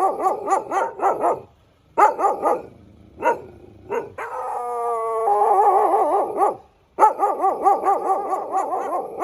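A dog yipping in quick runs of short, rising-and-falling calls, about six a second, with a drawn-out whining call about halfway through.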